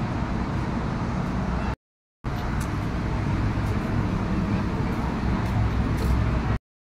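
Steady outdoor background rumble, cutting out completely for about half a second twice, about two seconds in and near the end.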